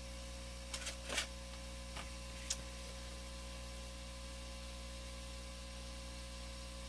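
Aoyue 968A+ rework station humming steadily while its built-in fume extractor runs, with a few light clicks about one and two and a half seconds in.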